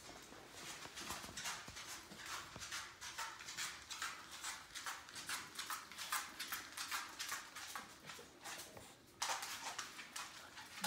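Dog panting rapidly close by, about four to five breaths a second, with a pause of about a second some eight seconds in before it resumes.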